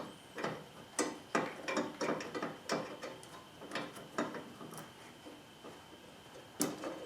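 Irregular plastic clicks and knocks as an LED headlight bulb and its wiring are worked by hand down into a car's headlight housing, behind the headlight.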